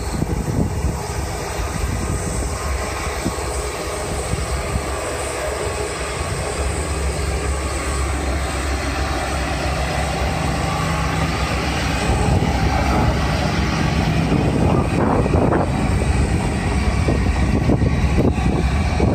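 A trolley sightseeing train's diesel locomotive running as the train pulls out. The engine note is steady and grows louder about two-thirds of the way through.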